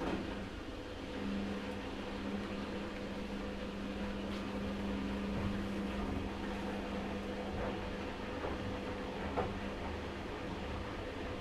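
Front-loading washing machine running: a steady motor hum with a fixed tone, a fainter higher tone, and a few light clicks.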